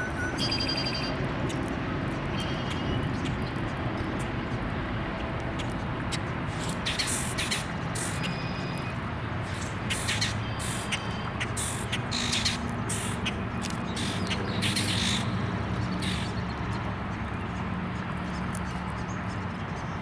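Birds calling: a few short whistled notes early on, then from about seven seconds in a run of short, harsh, raspy calls lasting several seconds, over a steady low outdoor rumble.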